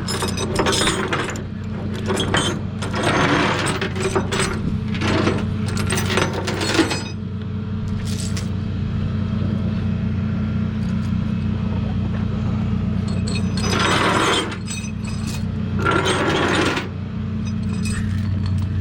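A vehicle engine running steadily with a low hum. Over it come several short spells of clinking and scraping handling noise.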